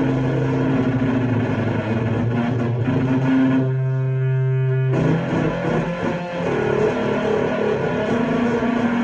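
Electric guitar in drop C tuning played through a Death By Audio Crossover Fuzz pedal and a delay, giving fuzzed, sustained notes. A little past the middle, one note is held and rings out for about a second and a half before the playing moves on.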